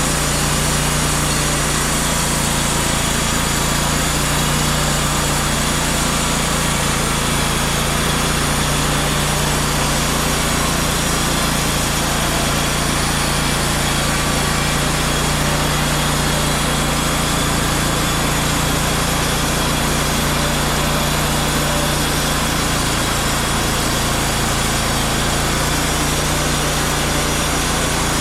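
Portable sawmill running steadily, its engine droning while the blade cuts through a black walnut log, with a constant hiss of sawing.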